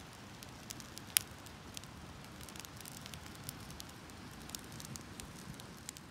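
A wood campfire crackling with sharp, irregular pops and one much louder pop about a second in.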